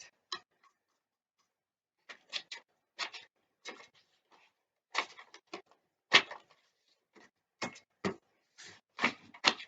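Cardboard tube, its end cut into slits and dipped in paint, dabbed repeatedly onto paper: a run of irregular soft taps, starting about two seconds in.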